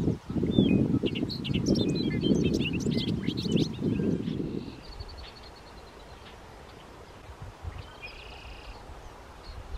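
Male bobolink singing: a rapid jumble of short notes jumping up and down in pitch for about four seconds, then a few fainter high notes later on. A low rumble of wind on the microphone runs under the first half and is the loudest part.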